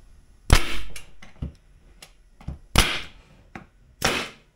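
Spotnails 15-gauge pneumatic composite finish nailer firing three times, driving plastic composite nails through a plywood sheet into the CNC spoilboard to hold it down. The second shot comes about two seconds after the first and the third a second later, each a sharp crack with a short hiss after it.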